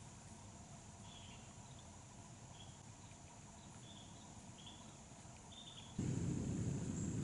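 Quiet woods with a steady high buzzing of crickets and other insects, and a string of short high chirps from about a second in. About six seconds in, a much louder low rumble starts abruptly and becomes the loudest sound.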